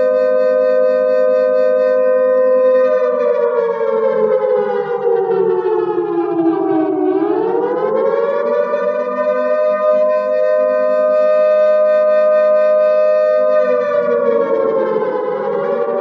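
Civil defense air-raid siren wailing a nuclear attack alert: a steady two-note tone that slides down in pitch about three seconds in, climbs back up, holds, then starts falling again near the end as a second rising wail overlaps it.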